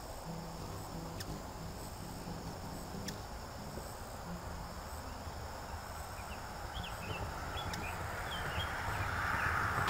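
Outdoor yard ambience of insects, crickets among them, trilling steadily, with a few short high chirps in the second half. A vehicle's noise swells up over the last couple of seconds.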